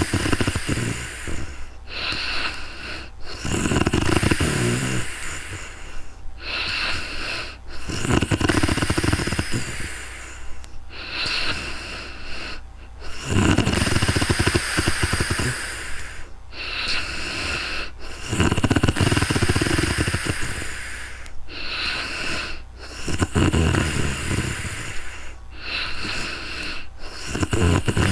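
A sleeping woman snoring steadily: about six rattling snores, one every four to five seconds, with airy breaths in between.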